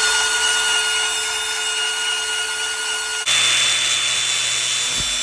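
Portable band saw (Porter-Cable Portaband) running steadily as it cuts a notch into a metal brake caliper bracket. About three seconds in the sound switches abruptly to an angle grinder with a sanding disc running on the bracket, a steady high whine, with two short low thumps near the end.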